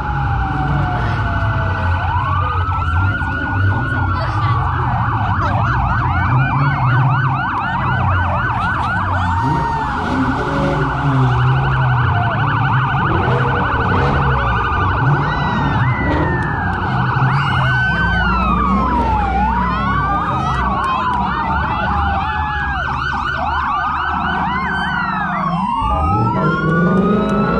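Several police sirens sounding at once, overlapping slow wails and fast yelps that rise and fall, over the low running of muscle car engines driving past.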